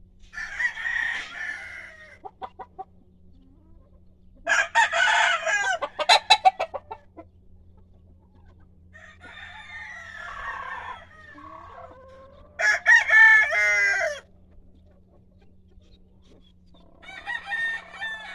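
Roosters crowing several times, the loudest crows about five and thirteen seconds in, with a short run of clucks between.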